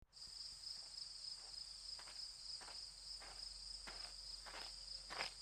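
Steady high chirring of crickets, with slow footsteps starting about two seconds in, about one and a half a second, each step louder than the last as they approach.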